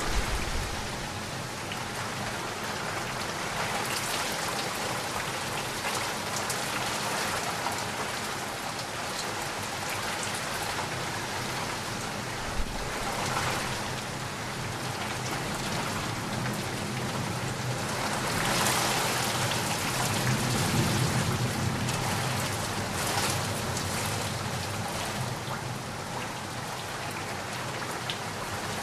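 Heavy rain falling steadily in a dense, even hiss, swelling louder with a low rumble about two-thirds of the way through.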